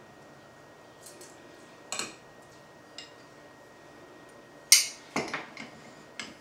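A metal hand citrus squeezer and glasses clinking and knocking while limes are squeezed into glasses of ice. Single sharp clinks come about once a second, then the loudest clatter comes near the end, followed by a quick run of knocks.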